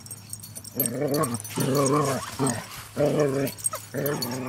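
Dogs vocalising in rough play: four drawn-out, wavering calls about a second apart.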